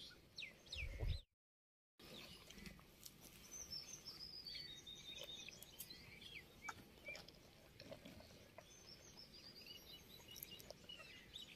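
Faint birds chirping in the background, with a run of short chirps stepping down in pitch a few seconds in. The sound cuts out completely for under a second near the start.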